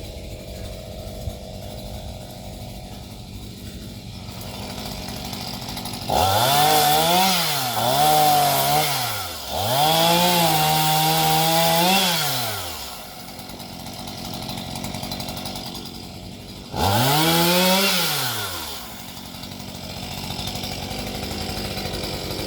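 Chainsaw idling, then revved up three times, the last one shorter; each time the pitch climbs and then falls back to idle.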